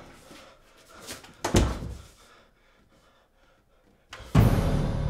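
An interior door slammed shut with a heavy thud about a second and a half in. Near the end a sudden loud low horror-music hit starts and rings on.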